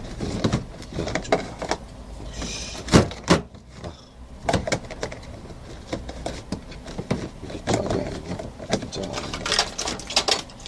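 Glass LocknLock food container and its plastic lid being handled: a string of clicks, taps and knocks as the lid is pressed and worked around the rim, loudest about three seconds in. The lid comes off near the end.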